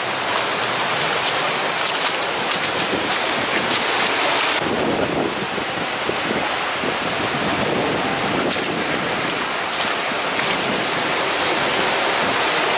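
Ocean surf washing along a rocky cobble beach, mixed with wind buffeting the microphone. A few faint clicks of stones underfoot come in the first few seconds, and about four and a half seconds in the rush gets fuller and deeper.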